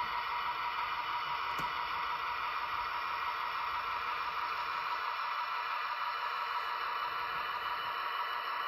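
HO-scale model train running steadily along the track: an even whirring hiss of wheels and motor, with a single faint click about a second and a half in.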